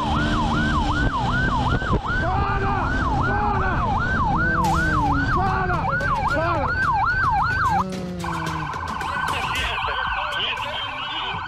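Police motorcycle siren in a fast yelp, rising and falling about two and a half times a second, over a low engine and wind rumble. About eight seconds in it switches to a steadier, higher warbling tone.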